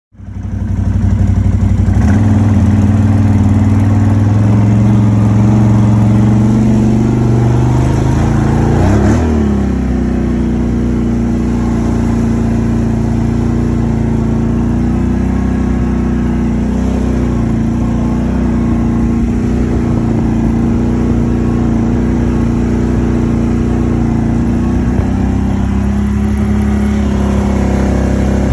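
Can-Am Outlander 800 XMR ATV's V-twin engine running under throttle while riding, loud and steady, with a brief change in pitch about nine seconds in.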